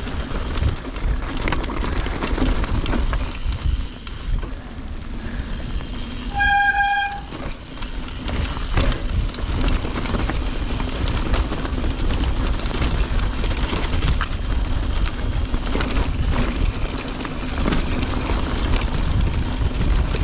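Santa Cruz Bronson mountain bike rolling fast down a wet, rocky track, its tyres rumbling and the bike rattling over stones. About six and a half seconds in, a disc brake gives one short, high squeal.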